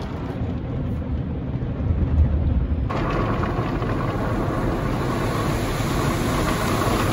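Automatic car wash heard from inside the car: water spraying and streaming over the windshield and body, over a low rumble. About three seconds in the spray suddenly turns louder and hissier, with a faint steady whine.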